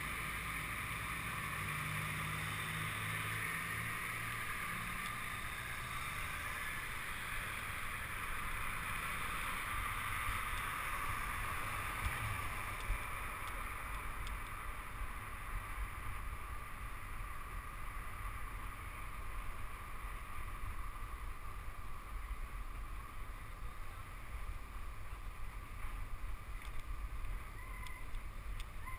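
Steady rush of wind on the microphone and road rumble from a bicycle riding along a city street, with a low engine hum from traffic in the first few seconds.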